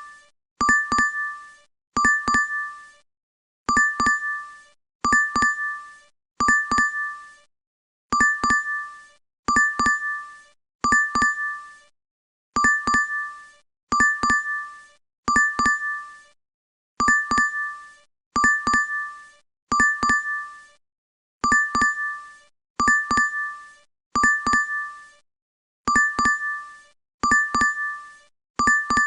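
DoorDash app order-alert chime repeating in a loop: short two-note dings in groups of four, each about a second apart, with a brief pause between groups.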